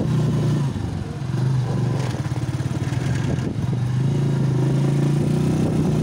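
Small motorcycle engine running steadily, louder at the start and again over the last two seconds, softer in between.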